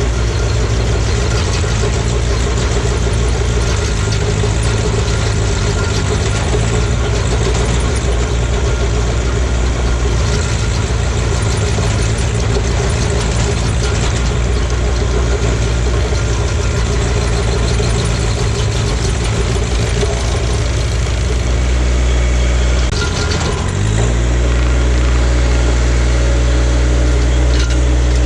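John Deere tractor engine running steadily while driving a MechMaxx SG 24 Pro stump grinder. About 23 seconds in, the engine note dips briefly, then settles at a slightly higher, louder pitch.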